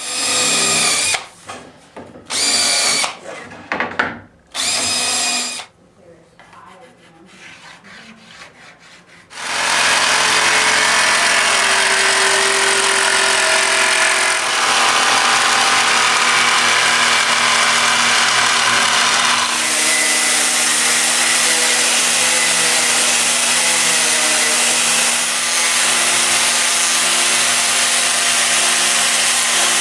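A few short loud bursts, then a jigsaw cuts steadily into a fiberglass ski for about ten seconds; at about two-thirds of the way through the sound changes to a disc grinder with a sanding disc grinding the cut ski, running steadily to the end. This is the swallowtail being cut out and ground to shape.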